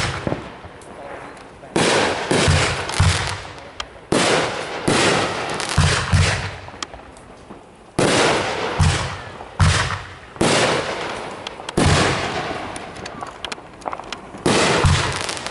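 Consumer aerial fireworks being fired in quick succession: a string of sharp bangs with a deep thump, about one every second or two, each trailing off in a fading hiss.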